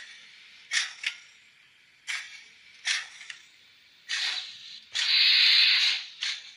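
Sound module of a Minitrix P8 steam locomotive model playing steam effects through its small speaker: short, irregular chuff-like hisses, and one louder steam hiss lasting about a second roughly five seconds in.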